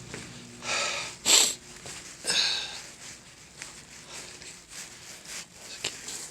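Three short sniffs in the first half, then faint scattered rustling.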